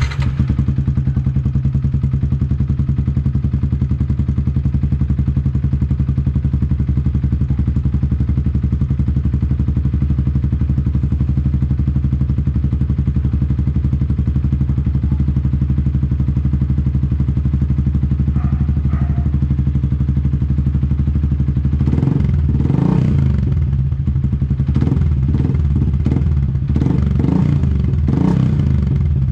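Yamaha Sniper 150's single-cylinder four-stroke engine idling steadily through a UMA Tru Pressure aftermarket exhaust. About three quarters of the way in, irregular clattering strikes join the idle.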